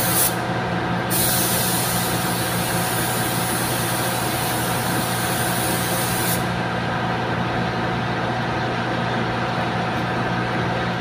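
Paint spray gun hissing as clear coat is sprayed onto a car's bumper, cutting out briefly about half a second in and stopping about six seconds in. A steady machine hum runs underneath.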